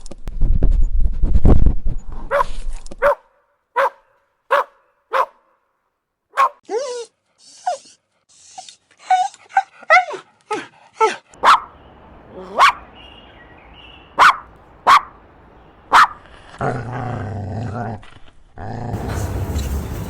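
A dog barking repeatedly in short single barks, with gaps between them. A stretch of low rumbling noise comes at the start and again near the end.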